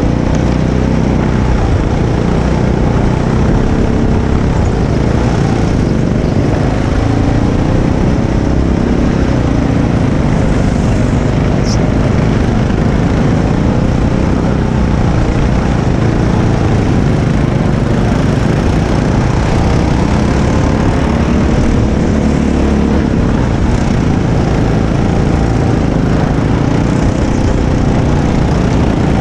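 Go-kart engine running at racing speed, its pitch rising and falling every few seconds as the throttle comes on and off through the corners, under heavy wind noise on the microphone.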